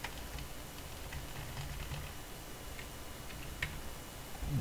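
Several scattered computer keyboard keystrokes, light single clicks a second or so apart, over a faint low hum.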